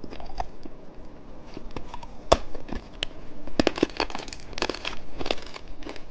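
Plastic candy wrapper crinkling and tearing as it is handled and opened, in irregular bursts of sharp crackles.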